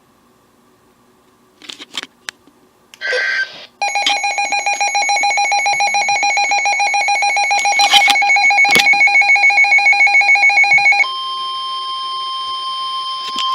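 Weather radio alert between warnings: a few clicks and a short screechy data burst, then a loud, rapidly pulsing electronic alarm beep for about seven seconds. It gives way to a steady tone of about 1 kHz, the warning alarm tone that comes before a new warning.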